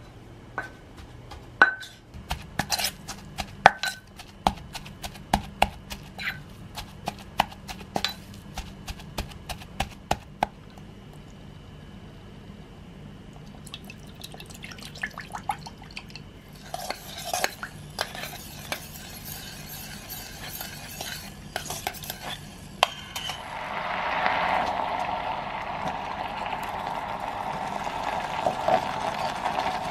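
A wooden pestle and metal spoon knocking and clinking in a clay mortar, many sharp strikes over the first ten seconds or so. Later a metal spoon clinks against a stainless steel pot, and from about two-thirds of the way in there is steady scraping and stirring as paste is spooned into the pot.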